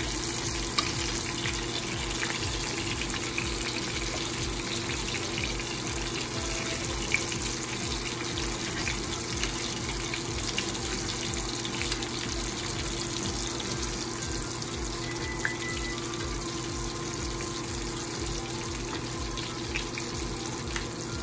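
Breaded chicken tenders pan-frying in hot oil: a steady sizzle, with a few light clicks of metal tongs as the pieces are turned.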